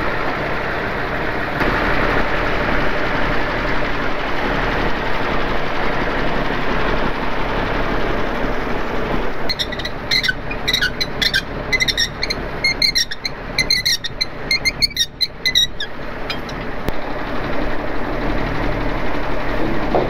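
A truck engine idling steadily. About halfway through, a few seconds of sharp, ringing clicks, as of rigging being handled.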